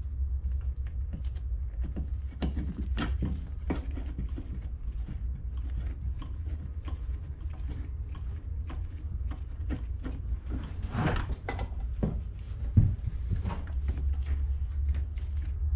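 Scattered light clicks and rattles of small metal parts being handled as the throttle cable is fitted to an ATV carburetor, over a steady low hum. One sharper knock about three-quarters of the way through.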